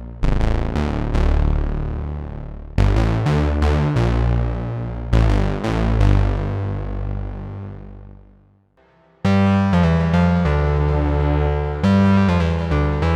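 GForce Oberheim SEM software synthesizer playing a bass-heavy chord, struck three times, each one ringing and fading. The sound dies away about two-thirds of the way in. After a brief gap a new patch starts: a sustained, brighter line of changing notes.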